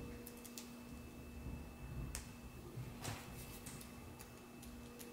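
Scattered light clicks and ticks of small metal fasteners being handled between the fingers, over a steady faint hum.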